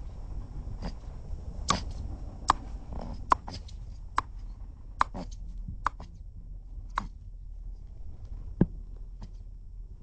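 Cape mole rat making a series of short, sharp clicks at irregular intervals, roughly one a second, thinning out near the end.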